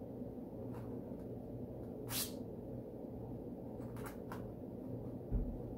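Faint handling sounds over a steady low hum: a few soft ticks and scrapes, a brief brushing sound about two seconds in, and a dull thump near the end, as hands place plastic spoons on a stretched canvas.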